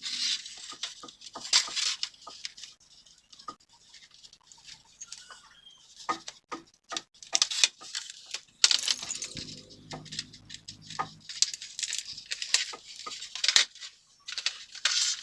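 Irregular clicks, taps and short rustling scrapes, like small hard objects being handled and knocked together.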